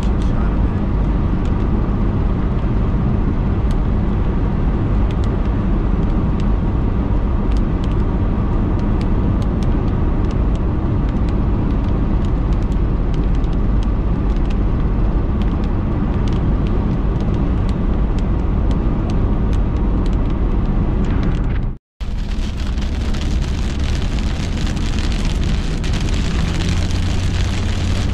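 Steady road and engine noise inside a car cabin at highway speed, with faint scattered ticks of raindrops on the windshield. After a sudden cut about 22 seconds in, a brighter hiss of heavier rain and wet road joins the cabin noise.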